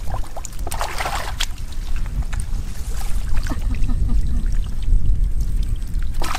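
Muddy shallow water sloshing and splashing as hands and bare feet work through it, with scattered sharp clicks and splashes over a steady low rumble.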